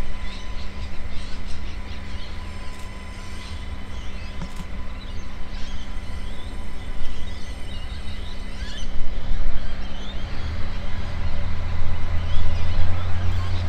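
Small birds chirping over a low rumble from an approaching Adelaide Metro 3000-series diesel railcar. The railcar's engine rumble grows much louder from about ten seconds in as it nears.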